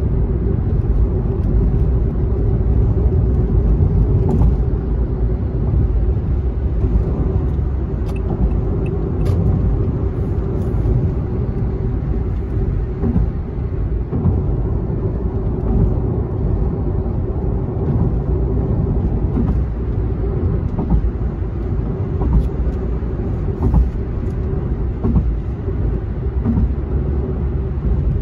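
Car driving on an expressway, heard from inside the cabin: a steady low rumble of tyres and engine with a constant hum.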